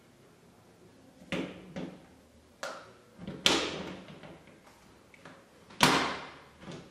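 Clacks, knocks and short scrapes of an airsoft grenade launcher being fitted onto the underside of a SCAR gas blowback rifle, with the loudest clacks about three and a half seconds in and again near six seconds.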